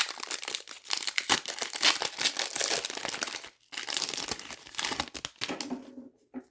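Plastic wrapper of a hockey card pack being torn open and crinkled in the hands, in two stretches with a brief pause about halfway through.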